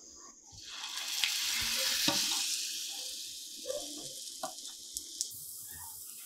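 Batter-coated raw banana slice sizzling in hot oil on a dosa tawa: the hiss swells about a second in as the slice goes into the oil, then slowly eases, with a few sharp crackles.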